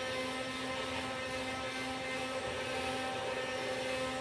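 Motorized Nerf Ultra Amp blaster with its flywheels spun up, an intense whirring held at a steady pitch.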